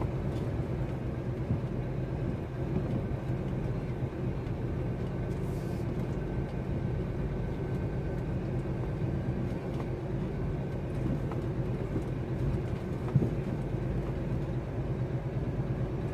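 Delivery lorry's diesel engine running steadily at low road speed, heard from inside the cab, with a few knocks and rattles from the rough concrete track and one sharper knock near the end.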